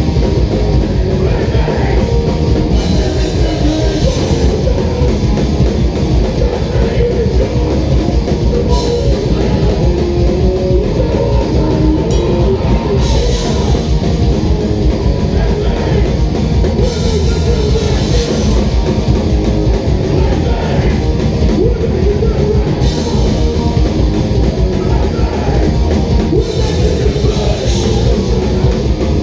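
Hardcore punk band playing live, loud and steady: distorted electric guitars, bass and a drum kit with crashing cymbals, and a singer's vocals over the top.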